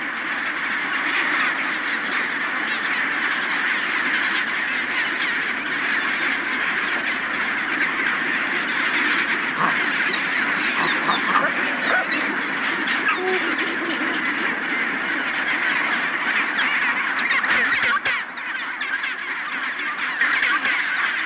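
A large chinstrap penguin colony calling, many birds at once in a dense, steady din.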